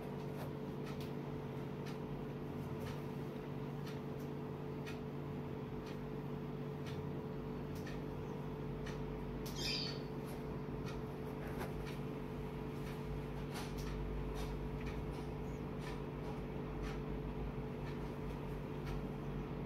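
Long hair being combed and braided by hand: faint, irregular rustles and ticks over a steady low hum. One short high-pitched chirp comes about ten seconds in.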